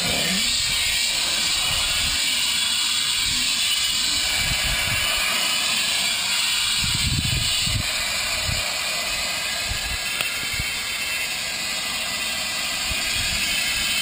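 Steady hiss with irregular low wind rumble buffeting the microphone.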